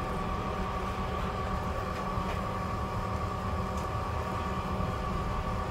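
A steady mechanical hum with a constant high-pitched whine, unchanging throughout.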